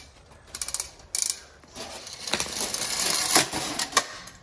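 Pressure-washer hose reel ratcheting, its pawl clicking in quick runs as the spool turns and the hose is pulled off. This is followed by a longer stretch of rattling and scraping with a few sharp clicks.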